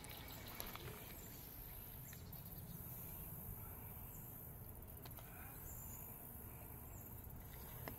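Faint insect chorus: a steady high-pitched buzz over a low steady rumble.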